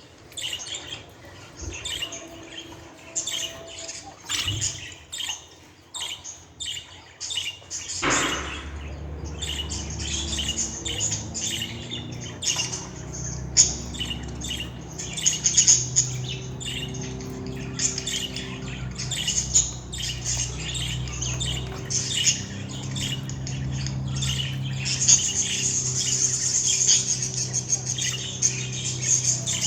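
Budgerigar chirping: a run of quick, short high chirps and squawks. A low steady hum comes in about eight seconds in.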